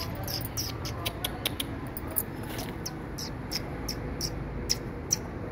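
Young puppies squeaking in short, high-pitched cries, several a second at irregular intervals, over a low background rumble.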